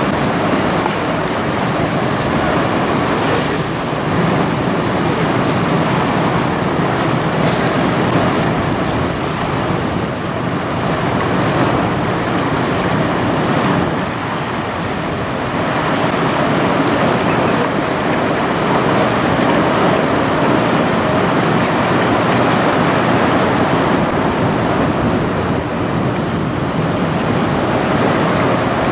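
Steady rushing noise of wind buffeting the microphone and choppy water, with no distinct engine tone.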